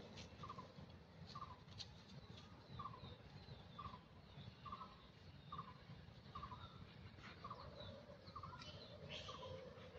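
Faint bird call: a short note repeated at a steady pace, about one every three quarters of a second, with a few light clicks among it.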